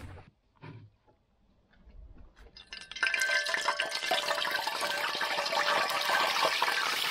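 Fish head laid into a pan of hot oil, sizzling loud and steady from about three seconds in, after a few faint knocks.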